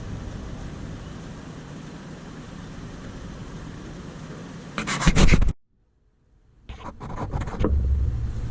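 Low, steady vehicle engine rumble. About five seconds in it is broken by loud knocks and buffeting on the microphone, the sound cuts out completely for under a second, then more knocks follow and the rumble returns louder.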